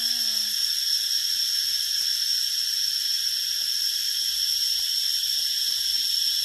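A steady, high-pitched chorus of forest insects droning without a break.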